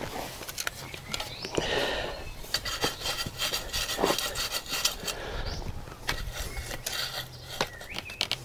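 Irregular scraping, rubbing and small clicks of dry garden soil being worked by hand and hoe while weeding.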